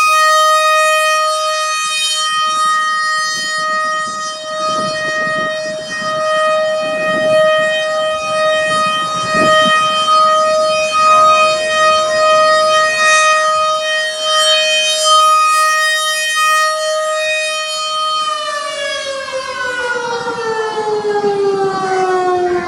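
ACA PN-20 outdoor warning siren sounding a steady alert tone, one held pitch with many overtones. About 18 seconds in, it begins winding down, its pitch sliding steadily lower as the alert ends.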